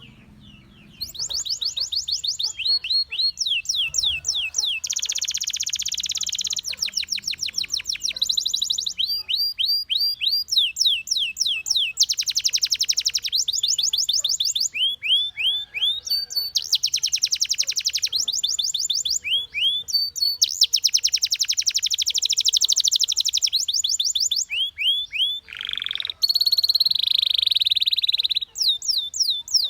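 Canary singing a long, unbroken song of fast trills. Each phrase is a quick run of the same falling note repeated many times, and the bird switches to a new phrase every second or two. The song starts after a short pause about a second in.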